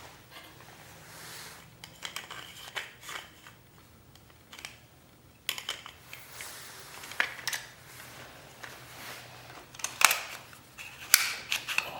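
Irregular clicks, taps and short scrapes of hard objects being handled, with a few sharper knocks near the end.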